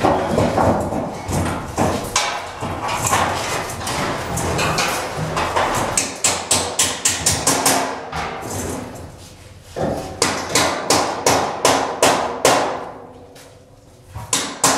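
Hammer blows on steel mold panels, in quick runs of about four or five strikes a second, with metal clattering in between as the panels of a biogas digester mold are fitted together.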